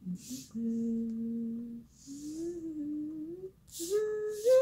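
A woman humming to herself: three drawn-out wordless notes, each a little higher than the one before, with short breaths between them.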